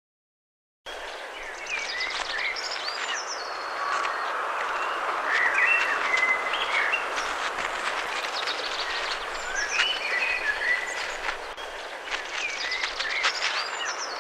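Outdoor nature ambience: many small birds chirping over a steady rushing background noise, starting about a second in.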